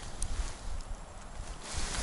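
Soft handling and rustling noise as a small winter ice-fishing rod and its line are handled, with a brief click about a quarter second in and a low rumble underneath.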